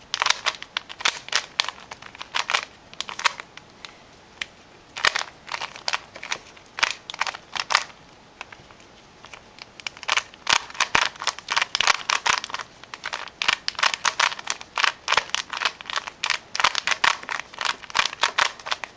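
Plastic Rubik's Cube being turned fast by hand: rapid, irregular clicking and clacking of the layers, with a short pause about halfway.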